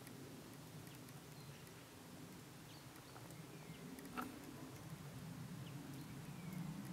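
Quiet woodland ambience: small birds call with short descending chirps over a faint low distant rumble. A single sharp click stands out a little past halfway.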